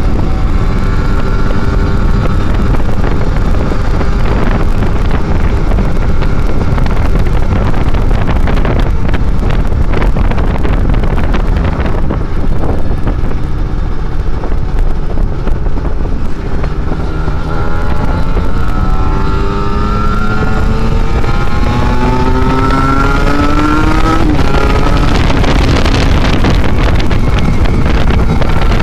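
Kawasaki Ninja 150 RR's two-stroke single-cylinder engine pulling along at road speed, under heavy wind noise on the microphone. In the second half it climbs steadily in pitch for several seconds as the bike accelerates, then drops sharply at a gearshift.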